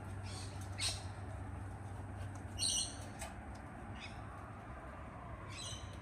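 Sulphur-crested cockatoos giving short, high-pitched squawks: a few brief calls, the loudest about two and a half seconds in and another near the end.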